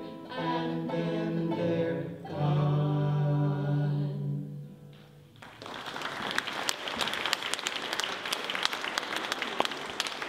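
Voices holding the last notes of a song with the band, fading out about five seconds in, then an audience breaks into applause.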